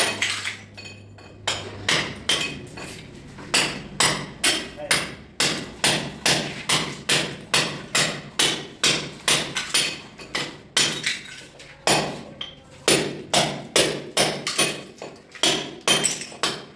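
Hammer blows struck steadily, about two to three a second, with a brief lull near the start.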